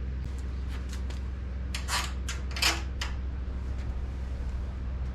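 Light clicks and clatter of small hardware and tools being handled, with a cluster of sharp clinks around the middle, the loudest a little past halfway. A steady low hum underneath.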